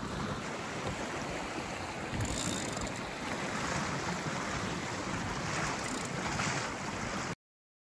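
Wind buffeting the microphone over the wash of choppy water against a small sailboat's hull, a steady rushing noise that cuts off abruptly to silence near the end.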